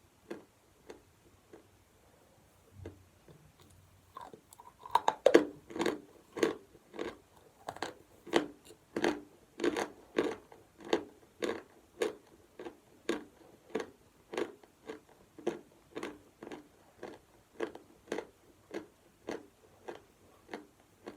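Chalk being bitten and chewed: a few faint clicks, then a loud crunching bite about four seconds in, followed by steady crunching chews about two a second.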